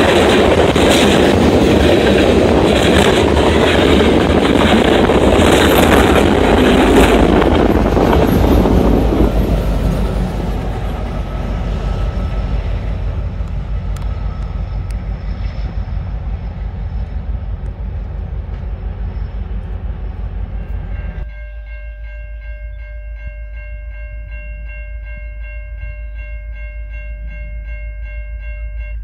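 Covered hopper cars of a freight train rolling past close by, wheels clicking over the rail joints, the noise fading away as the train departs. Near the end, a diesel locomotive's multi-note horn sounds steadily from an approaching train in the distance.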